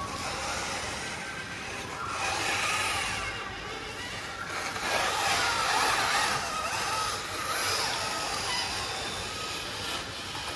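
Micro-scale RC crawler's small electric motor and gearbox whining, the pitch wavering up and down with the throttle and loudest in the middle stretch.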